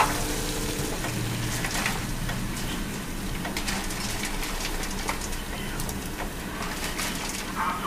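Pot of water at a hard boil, bubbling steadily, with small plops and splashes as cauliflower florets are dropped in by hand a few at a time.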